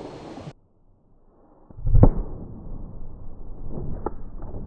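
Slowed-down blast of a small homemade firecracker going off in a water-filled glass water cooler jug: a deep, dull boom about two seconds in, then a noisy splashing tail with a few sharp clicks.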